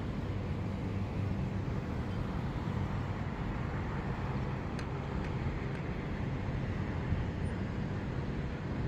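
Steady low rumble of distant city road traffic, with no distinct vehicle standing out.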